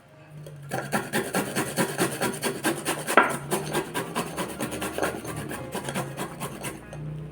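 Peeled ginger root being grated by hand on a grater, in quick, regular strokes several a second, starting about a second in.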